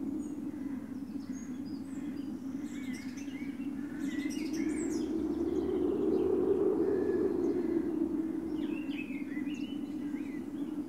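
Small birds chirping in short, scattered calls, thickest twice, over a steady low rumble that swells and eases.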